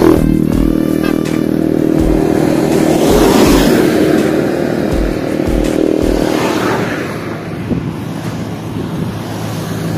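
A motor vehicle travelling along a road. Its steady engine hum gives way after about a second to a rush of road and wind noise, with repeated low thumps of wind buffeting the microphone.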